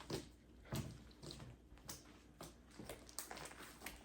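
Fingers poking homemade slime: a string of faint, short squelches and pops, about a dozen.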